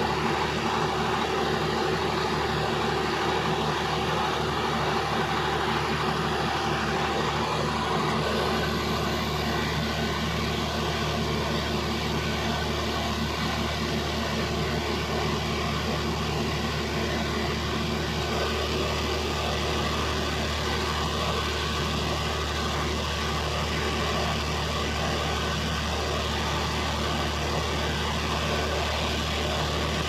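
Steady drone of a diesel generator set running under automatic step loading from a resistive/inductive load bank, mixed with the load bank's cooling fans. The low hum grows stronger about eight seconds in as the next load step comes on.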